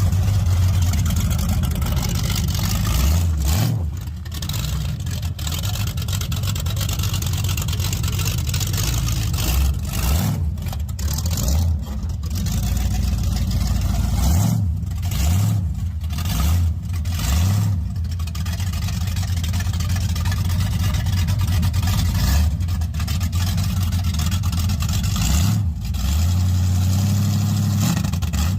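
1982 Camaro's big-block Chevy V8 with aftermarket exhaust running and being revved, its pitch rising and falling several times and climbing again near the end.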